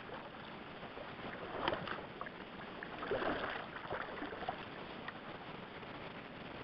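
River water splashing and sloshing as a shot drake wood duck is pulled out by hand, with a short crackle about two seconds in, the main splashing about three seconds in, then a few small drips, over a steady hiss.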